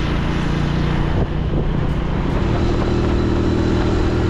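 Motorcycle engine running steadily under way. It dips briefly just over a second in, then runs on at a slightly higher pitch.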